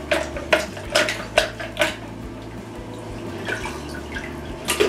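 Plastic bath toys knocking and bathwater splashing in a bathtub: sharp hollow knocks about every half second for the first two seconds, softer splashing after, and another knock near the end.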